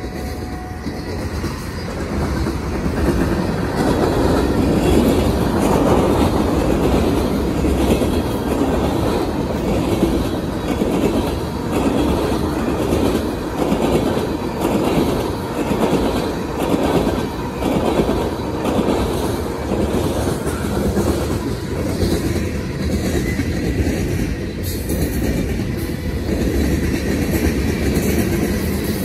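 Norfolk Southern freight train of tank cars rolling past, the wheels clacking over the rail joints in a regular rhythm over a steady rumble.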